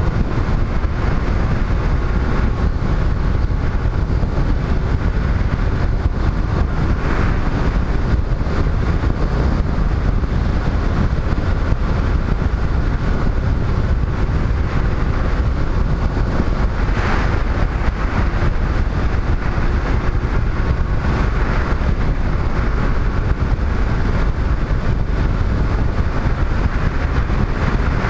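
Motorcycle riding at a steady cruising speed: a constant wind rumble on the microphone, with the bike's engine and tyre noise running underneath.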